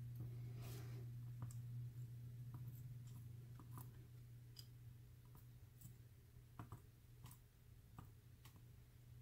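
Faint, scattered clicks of steel tweezers picking up and setting down small lock springs and driver pins in a wooden pin tray, over a low steady hum.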